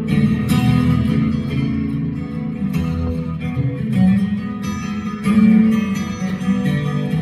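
Solo steel-string acoustic guitar, strummed and picked chords ringing on in an instrumental passage, with no singing.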